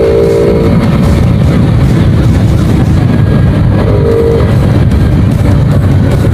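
Honda Wave 110i's single-cylinder engine running while being ridden, heavy with intake noise from an airbox that has been drilled and had its filter element removed. Wind rumbles on the microphone, and a short tone sounds in the first second and again near the middle.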